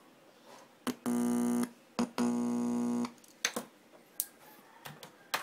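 Speakers driven by a TPA3116D2 class-D amplifier board buzzing loudly twice, about half a second and then about a second, each buzz starting with a click, followed by a few scattered clicks. The buzz is hum picked up as a metal screwdriver tip touches the board's input, a quick check that the amplifier is passing signal.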